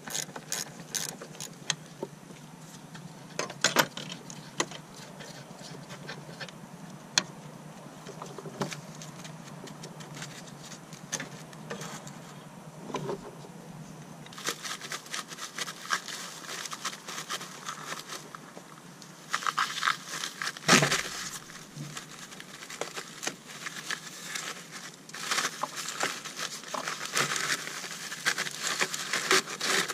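Hand tools at work on a truck: scattered clicks, taps and scrapes of metal, with a denser run of quick clicking about two-thirds of the way in and again near the end, and one louder knock about two-thirds in.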